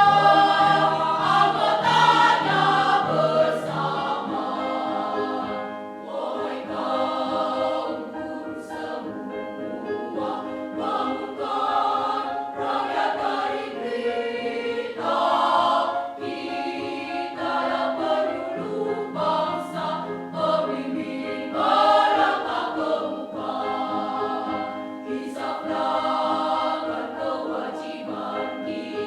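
Choir singing a song in several parts.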